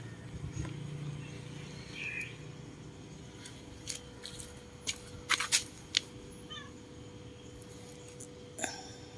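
Black-and-white domestic cat giving a few short meows, with a cluster of sharp clicks in the middle.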